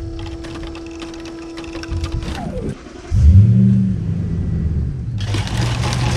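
A vehicle engine starts about three seconds in and runs, after a steady hum that slides down in pitch and cuts out.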